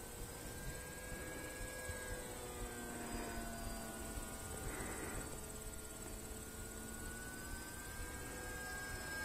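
Faint, distant whine of a radio-controlled foam I-16 model's electric motor and propeller, its pitch drifting slowly up and down as the plane manoeuvres high overhead. Behind it is a steady high chirring of crickets.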